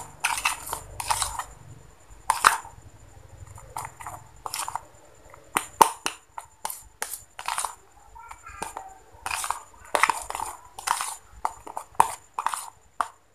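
Metal spoon stirring and scraping lumpy, curdled slime in a plastic bowl: a run of irregular wet, crunchy scrapes and clicks, two or three a second. The slime, wood glue mixed straight with activator, has set into crumbly tofu-like curds.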